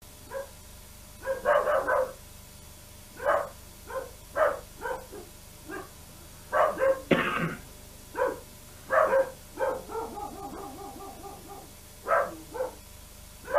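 A dog barking in short yaps, over a dozen spread irregularly, with a longer run of quick whimpering yelps about ten seconds in.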